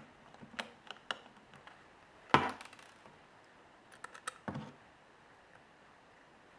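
Small clicks and taps of a precision screwdriver and phone parts being handled while the screws are taken out of an iPhone 3G. Two louder knocks stand out, the first about two seconds in and the second a couple of seconds later, each after a few light clicks.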